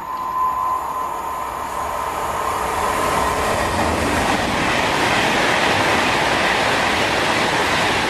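Class 390 Pendolino electric train passing close along the platform: a steady high-pitched tone for the first few seconds, then loud wheel-on-rail and air rush builds from about three seconds in and holds as the carriages go by.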